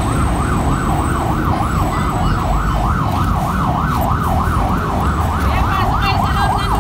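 Siren in fast yelp mode, its pitch sweeping up and down about three times a second, over a low street rumble.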